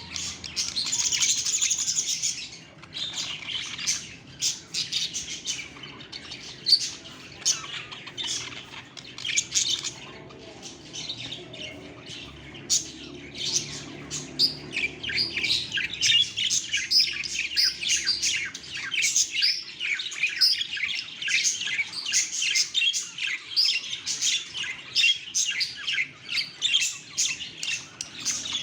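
Budgerigars chirping and chattering in rapid, continuous warbles, with a loud burst of chirps at the start and a denser run of chirping from about halfway through.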